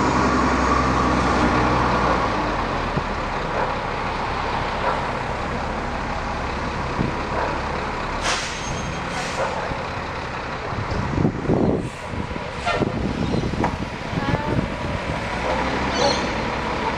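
Heavy vehicle engines running amid road traffic noise, with a steady engine drone strongest in the first couple of seconds and several brief hisses and passing-vehicle swells later on.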